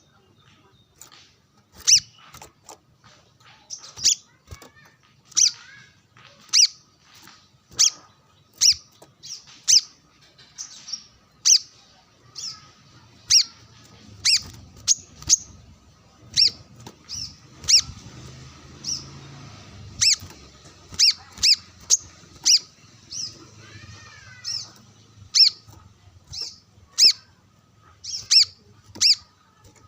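Brown-throated sunbird (kolibri kelapa) calling persistently: short, sharp, high single notes repeated about once a second in an irregular rhythm. A faint, different bird call slurs up and down once near the 24-second mark.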